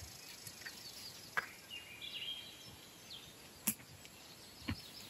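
Quiet outdoor ambience beside a calm lake, with faint bird chirps about two seconds in and a few scattered sharp clicks.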